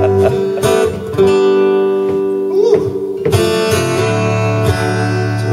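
Acoustic guitar strummed, chords left ringing, with fresh strums about a second in and again a little past three seconds.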